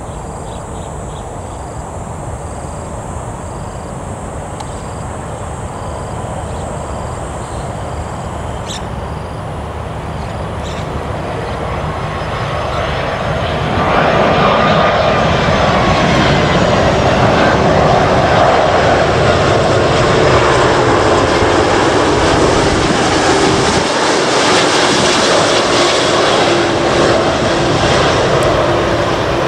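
Airbus A330-243F freighter's twin Rolls-Royce Trent 700 turbofans on landing approach, passing low overhead. The jet noise builds slowly, jumps sharply about halfway through as the aircraft comes over, then stays loud, with whining tones sliding down in pitch as it moves away.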